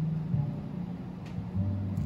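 Background music with a low bass line of held notes that change pitch every half second or so.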